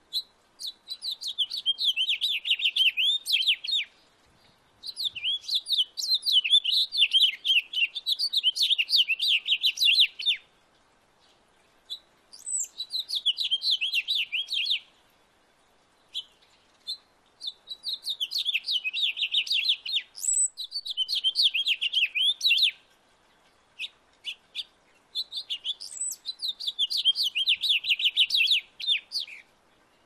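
A male house finch sings five long songs of quick, jumbled warbling notes, with short pauses between them.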